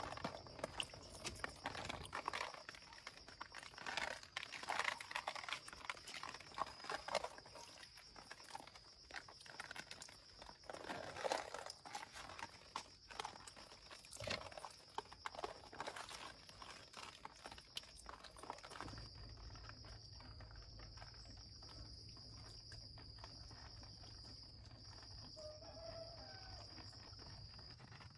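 Steady high-pitched insect drone in woodland, with irregular rustling, crackling and crunching of leaves and twigs that stops about two-thirds of the way through, leaving only the drone and a low hum.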